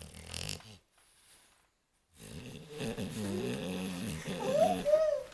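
A French bulldog breathing noisily through its short, flat nose while its muzzle is held and its nose is moisturized. The sound drops away for about a second near the start and then goes on, with a higher, rising-and-falling note near the end.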